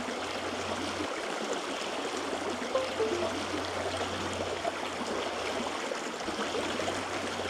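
Shallow river current running steadily over stones, a constant rushing of water.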